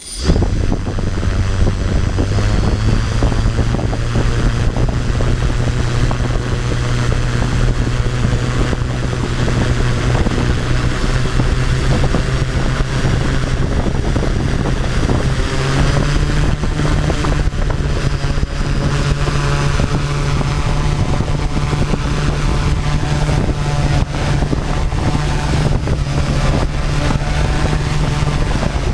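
Quadcopter's four RcTimer 2830 brushless motors with 11-inch APC props spinning up suddenly and running steadily, a hum over a rush of prop wash on the onboard microphone. The hum steps up in pitch a little over halfway through as the throttle rises.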